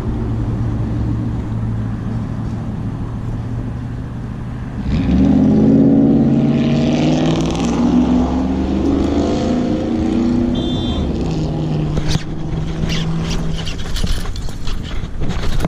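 An engine running close by, steady at first, then louder about five seconds in with its pitch rising and falling, and easing off near the end.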